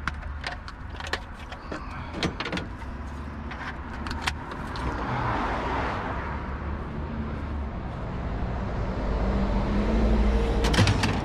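Short knocks and clicks of scrap being handled in the first half, over a steady low vehicle engine rumble; the rumble grows louder near the end.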